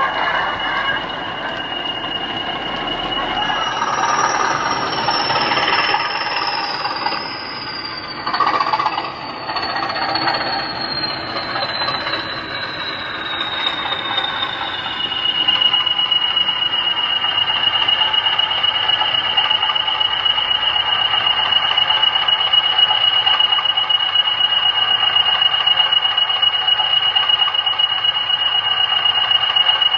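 Sound decoder of a model Class 20 diesel locomotive (Jamie Goodman sound file) playing through a double iPhone speaker: the engine's high turbocharger whistle falls slowly in pitch over about ten seconds as the loco slows, then settles into a steady whistle with the engine idling.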